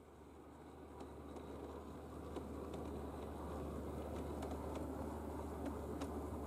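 Model Bachmann G scale Peter Witt streetcar running on the garden railway track: a steady rumble and hum with irregular light clicks, growing louder as it approaches.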